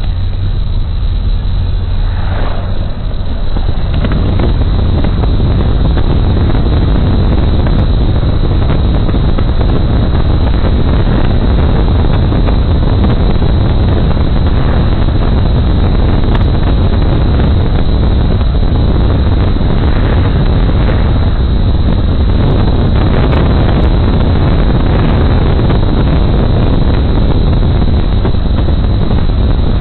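Steady rumble of a moving car's road and wind noise, with wind buffeting the phone's microphone; it grows louder about four seconds in and then holds steady.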